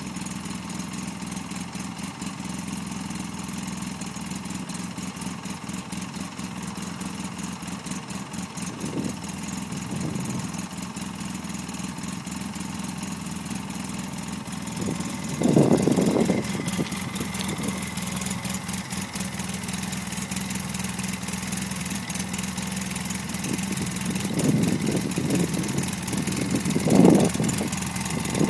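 Polaris RZR 800's twin-cylinder engine idling steadily, with a few brief louder bursts about halfway through and again near the end.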